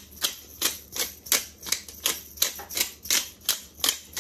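Hand-twisted black pepper grinder ratcheting as it grinds pepper, a steady run of sharp clicks at about three a second.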